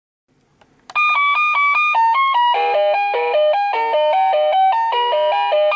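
1Byone QH-0016 wireless doorbell chime unit playing one of its polyphonic melodies: a quick tune of electronic notes, several at once, starting suddenly about a second in.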